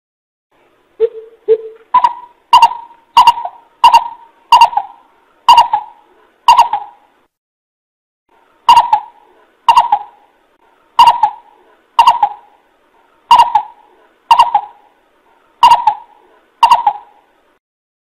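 Greater coucal calling: two low hoots about a second in, then a run of about eight deeper-sounding, evenly spaced hoots, a pause of a second or two, and a second, slower run of about nine hoots. This is the bird's lure call, used to draw other coucals in.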